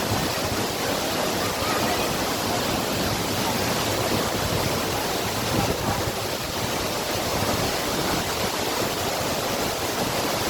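Waterfall rushing steadily, an unbroken roar of falling water.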